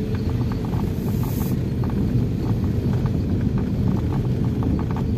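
Vehicle driving slowly: the steady low rumble of its engine and tyres on the road, with a faint steady hum.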